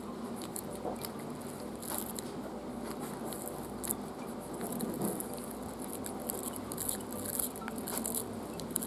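Frenchton puppy chewing and gnawing on an orange plastic IKEA brush, its teeth clicking and scraping on the bristles and head in irregular little bursts.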